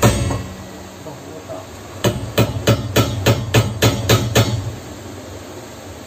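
Hammer blows on the rudder-fitting bolt and bracket of a wooden boat: a single blow at the start, then a quick run of about nine evenly spaced blows, roughly three a second, stopping about four and a half seconds in.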